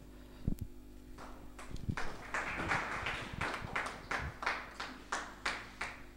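Light hand clapping from a few people: short, even claps about three a second, starting about a second in and tailing off near the end, with a soft knock just before.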